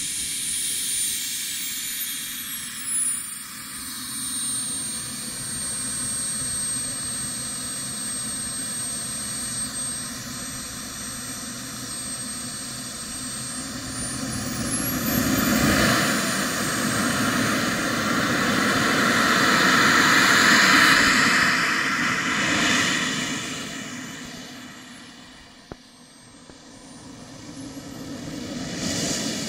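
Radio-controlled scale model L-39 Albatros jet's engine running as it taxis: a steady jet rush with a high whine that glides up and down in pitch as the throttle changes. It grows loudest in the middle, fades low near the end, then builds again.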